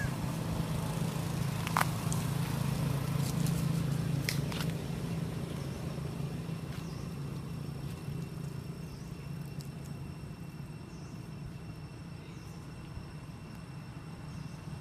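A steady low motor hum, like an engine running nearby, with a few sharp clicks in the first few seconds; it eases off slightly after the middle.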